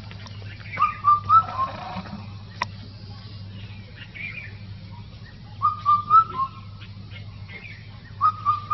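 Indian cuckoo calling its four-note whistled phrase, the last note lower, three times about four to five seconds apart. A steady low hum and faint calls of other birds run underneath.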